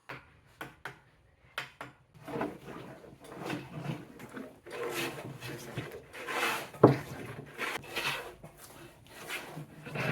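Wood being handled and worked: a few sharp knocks, then irregular scraping and rubbing strokes, with one louder knock near the seven-second mark.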